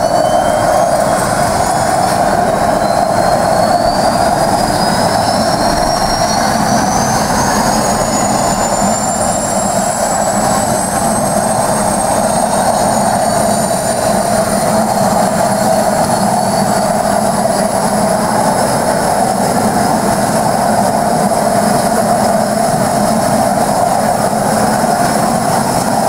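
Let L-410 Turbolet's turboprop engine starting up. A turbine whine rises in pitch over about the first ten seconds and then holds steady, over the constant drone of the spinning propeller.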